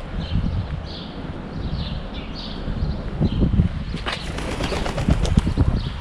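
Small birds chirping, short high chirps repeated every half second or so, over a steady low rumble. About four seconds in comes a quick flurry of clattering pigeon wing flaps.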